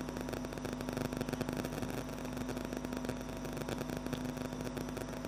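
Steady background hum and hiss, with one constant low tone and no other events.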